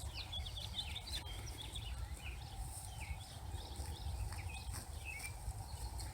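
Small birds chirping in many quick, short calls, over a steady low rumble.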